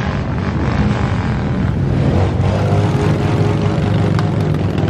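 Several cruiser and chopper motorcycles running at low speed, a deep, steady engine rumble.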